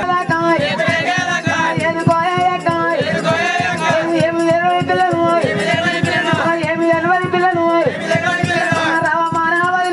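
Live folk music for a sung story performance: a melody on long held notes over quick, steady drum strokes and a rattling percussion.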